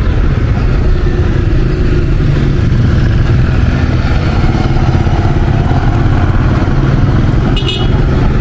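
Road traffic in a busy city street, cars and motorbikes driving past, with a steady low rumble. A brief high-pitched sound near the end.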